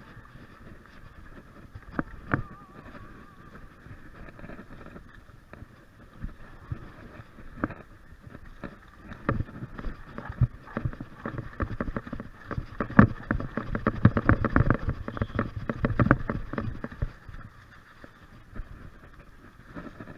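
Mountain bike rattling and knocking over a bumpy dirt singletrack, heard from a camera mounted on the bike, over a steady rushing noise. The knocks come thick and loud through the middle stretch, then ease off near the end.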